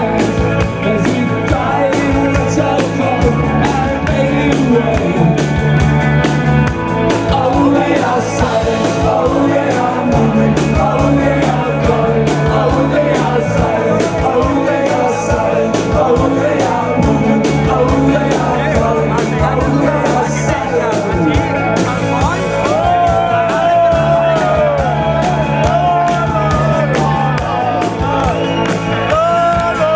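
Live rock band playing at full volume: electric guitar, bass guitar and drums in a steady rhythm, with a male lead voice singing.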